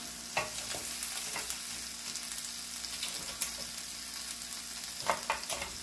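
Marinated crab pieces sizzling in coconut oil on a cast iron griddle, a steady high hiss. Several light knocks come through it as more crab pieces are set down on the griddle.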